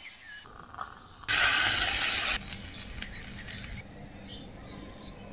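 A loud hiss starts abruptly about a second in, lasts about a second and cuts off sharply. A fainter hiss follows for about another second and a half, then stops.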